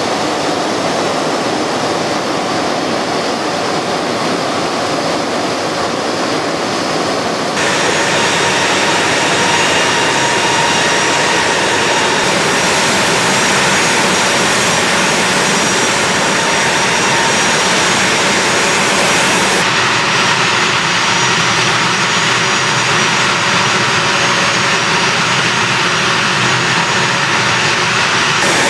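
A-10 Thunderbolt II's twin TF34 turbofan engines running on the ground: a loud, steady rush with a high whine over it. The tone changes abruptly about seven seconds in and again about twenty seconds in.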